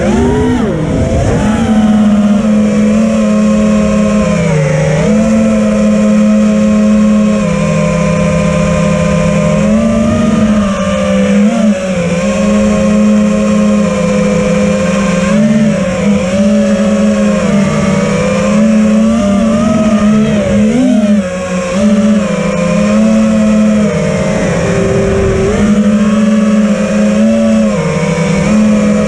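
5-inch FPV quadcopter's four brushless motors and propellers buzzing in flight, a steady whine whose pitch dips and climbs again every few seconds as the throttle changes, heard close up through the camera mounted on the drone.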